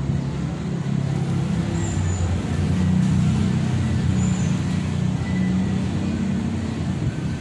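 A steady low engine rumble, its pitch shifting slightly, like a motor vehicle running nearby.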